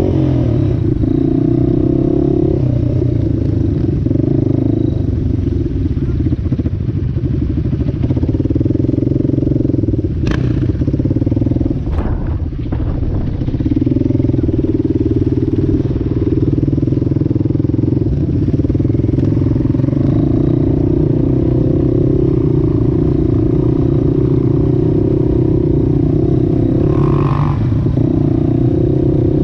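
Small off-road quad engine running under load while riding, its note rising and falling with the throttle and easing off briefly about twelve seconds in. There are a couple of sharp knocks, around ten and twelve seconds in.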